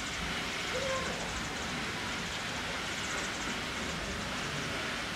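Mine Onsen hot-spring geyser spouting, a steady rushing hiss of steam and hot water.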